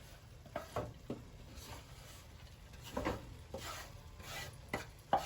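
Chopped raw vegetables being tipped into a container by hand: scattered light knocks and soft rubbing, with a sharper knock near the end.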